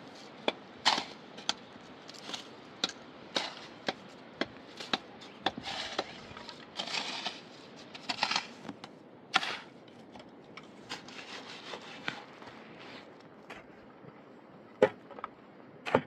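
Irregular sharp knocks and clicks mixed with short scraping and rubbing sounds, from hands working with objects; the loudest knock comes near the end.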